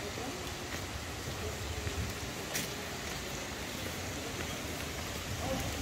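Steady rain falling on wet paving stones, an even hiss with a faint tick about two and a half seconds in.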